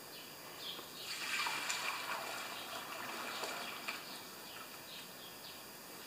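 Cleaning solution poured from a stainless steel pot into the metal tank of an ultrasonic cleaner: a trickling, splashing pour that starts about a second in and tapers off.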